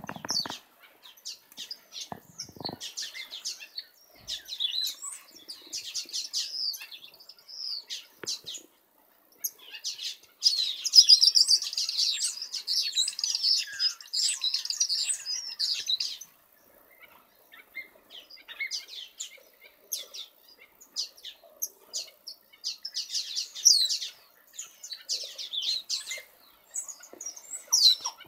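Small aviary finches and waxbills chirping and calling: many short high-pitched calls, with a busy stretch of overlapping chatter from about ten to sixteen seconds in.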